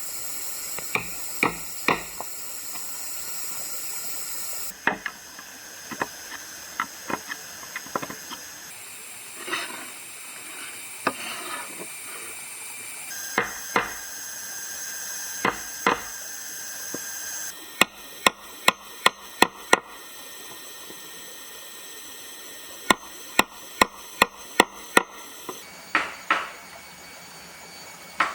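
Sharp knocks of hand tools striking wood, some single and some in quick runs of about six evenly spaced strikes, over a steady hiss that changes abruptly several times.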